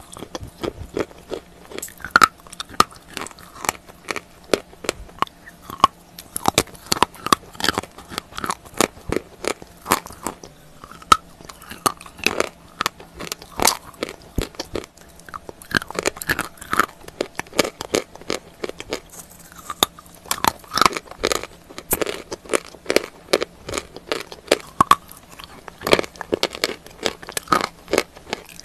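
Wet chalk bitten and chewed right at a small clip-on microphone: close, irregular crunching and crackling, many sharp crunches a second.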